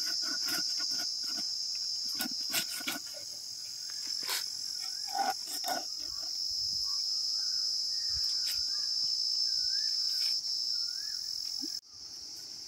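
Steady, high-pitched drone of insects, with scattered scraping and cutting strokes as a fish is scaled and cut against an upright fixed blade. A few short warbling chirps come in partway through, and the sound drops suddenly near the end.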